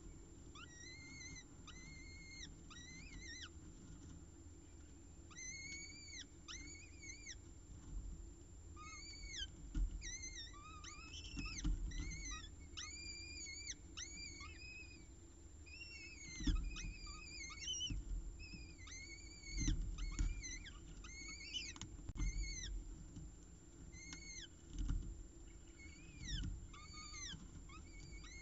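Downy peregrine falcon chicks giving begging calls while being fed: short high cheeps that rise and fall, in quick runs of two to four, repeated throughout, with occasional low thumps as the adult tears at prey on the gravel.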